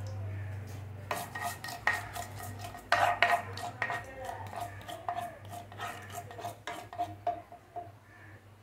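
Mustard seeds popping and spluttering in hot oil in a non-stick frying pan: a dense run of sharp pops starting about a second in, loudest around three seconds, thinning out near the end, a sign the oil is hot enough for tempering. A ladle clinks and scrapes in the pan.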